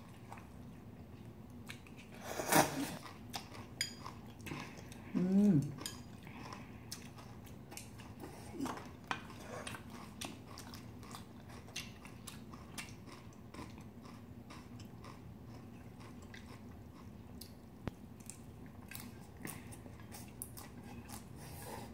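Eating sounds: chewing and crunching of young-radish kimchi bibimbap, with many small clicks of a spoon in a stainless-steel bowl and chopsticks on noodles. Two brief hums are the loudest sounds, about two and a half and five and a half seconds in.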